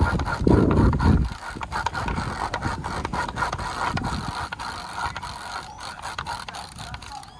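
Kite line being handled and wound in, a rapid, irregular clicking and rubbing. A loud low rumble runs under it for the first second or so.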